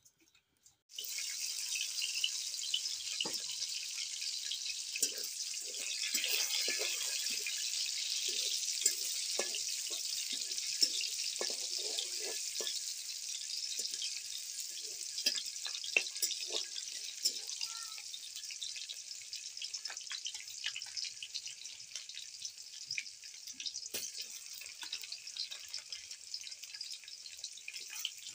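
Food frying in hot oil in a wok. A loud sizzle starts suddenly about a second in and slowly dies down, full of small crackles and pops. In the first half a spatula stirs and scrapes against the pan.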